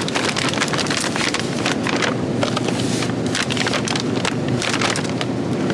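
Dense crackling and crinkling of plastic meal-kit packaging being handled, over a steady low hum.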